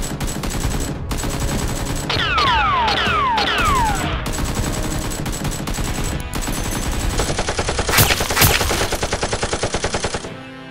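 Rapid automatic gunfire, the sound of a toy blaster battle, dense and continuous, with several falling whistling tones about two to four seconds in. Near the end it becomes a fast, even burst of about ten shots a second.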